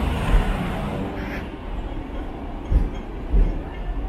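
Hong Kong double-decker electric tram running along its street rails, heard from on board: a steady rumble with a few short low thumps.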